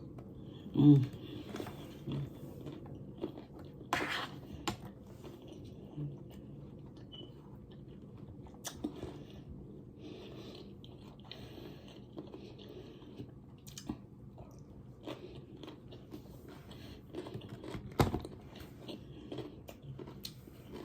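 A person chewing and biting food close to the microphone, with soft crunches and mouth clicks, eating rice, smoked sausage and cucumbers. A sharp knock sounds once, about eighteen seconds in.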